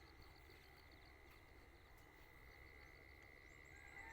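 Faint early-morning countryside ambience: a steady high insect drone with rapid, pulsing insect trills over a low hum, and a short bird whistle right at the end.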